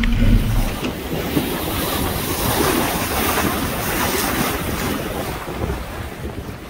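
Wind buffeting the microphone and seawater rushing and splashing along a sailboat's hull as it sails through choppy water. A steady low hum stops about half a second in.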